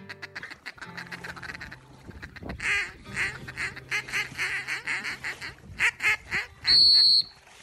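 Duck quacking: a rapid run of repeated quacks that grows louder about a third of the way in, then a single long, high, steady whistle blast near the end, the loudest sound here.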